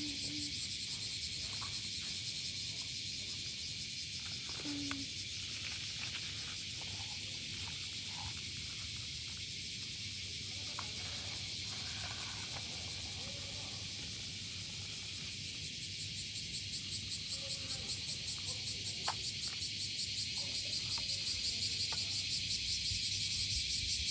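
Steady high-pitched insect chorus that grows louder and pulses rapidly in its last several seconds, with a few faint clicks.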